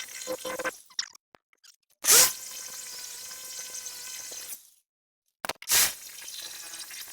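Two sudden loud knocks about three and a half seconds apart, with faint background between them and moments of dead silence.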